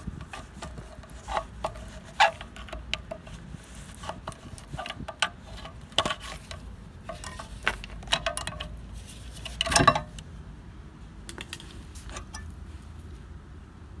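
Metal clinks, knocks and scrapes as a screwdriver pries the Vauxhall Astra H's rear brake caliper loose and it is worked off the disc. The loudest clank comes about two-thirds of the way through.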